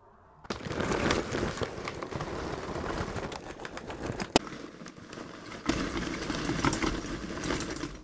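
Lump charcoal poured from a bag into a small plaster-and-sand-lined bucket furnace, the pieces clattering and tumbling steadily, with one sharp knock about midway. It starts about half a second in.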